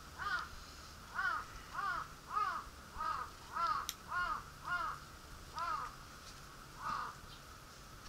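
A crow cawing repeatedly: about ten caws at a steady pace, with the last one after a short pause.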